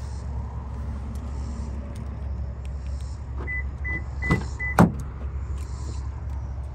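Four short, evenly spaced electronic beeps, then two sharp clicks from the Toyota Sequoia's driver door handle and latch as the door is opened, the second click the loudest. A steady low rumble runs underneath.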